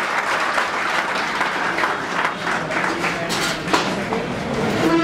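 A roomful of students applauding, many hands clapping together at a steady level.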